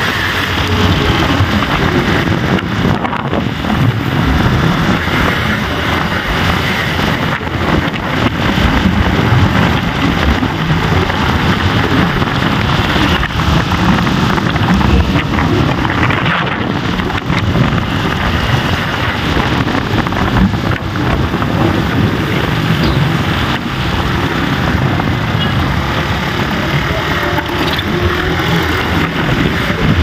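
Steady rush of wind on the microphone together with the running noise of a moving vehicle, loud and unbroken.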